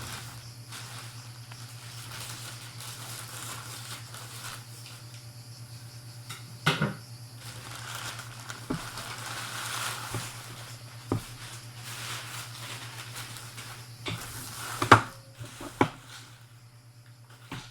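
Handling noise: rustling and crinkling with several sharp clicks and knocks, the loudest about fifteen seconds in, over a steady low hum.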